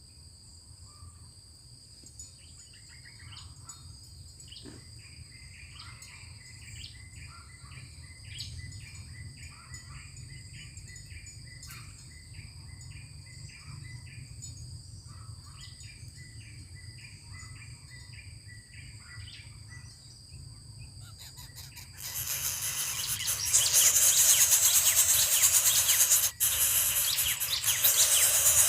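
Steady high insect trilling with a bird giving short repeated chirps, about two a second. About 22 s in, a much louder harsh hiss rises and takes over.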